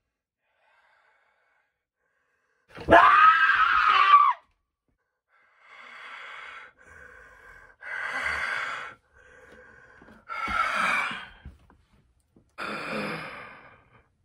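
A person's loud vocal gasp about three seconds in, then a run of breaths, louder and softer in turn, close to the microphone.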